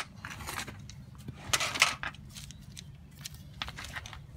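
Irregular clicks, clinks and rustling of hands and hardware being handled, such as lug nuts and gloves, while a wheel is refitted. The loudest burst comes about one and a half seconds in, over a steady low background hum.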